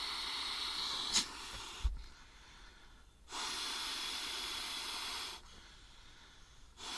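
A person blowing up a self-inflating sleeping mat by mouth because it won't inflate itself: long breathy exhalations of about two seconds each, three in all, with quiet pauses for breath between them. A small click about a second in and a low bump near two seconds in.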